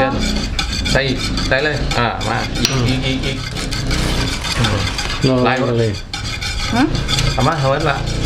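Ingredients being stirred and mixed in a bowl, a utensil scraping and clicking against the bowl again and again.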